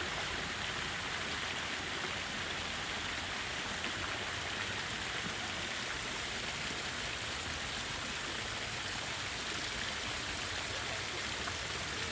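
Ornamental fountain water falling and splashing steadily, an even unbroken hiss of water.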